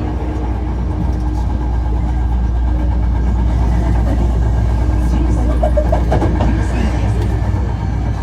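Hankyu 1300 series electric train running between stations, heard from inside the car: a steady low rumble of wheels on rail with a constant hum from the traction equipment. The hum drops out about three seconds in.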